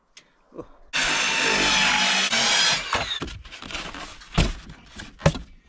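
Rigid foam insulation board scraping against a plywood box for about two seconds, starting about a second in, then several sharp knocks of the board against the plywood as it is fitted inside.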